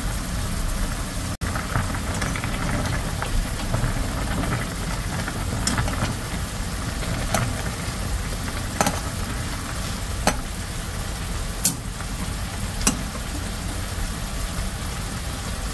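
Cream sauce simmering in a frying pan and water boiling in a small pot on the stove: a steady sizzle, with a short sharp click or pop about every second and a half.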